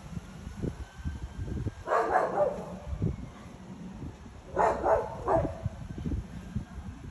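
Two short bouts of animal calls, about two seconds in and again about four and a half seconds in, the second in three quick parts, over a low, uneven rumble.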